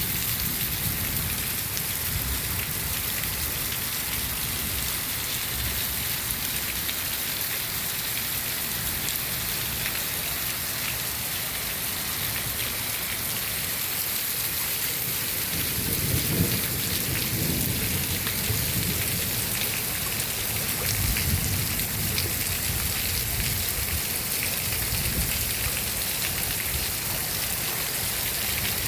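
Heavy rain falling in a steady hiss, with a low rumble swelling about halfway through and again a few seconds later.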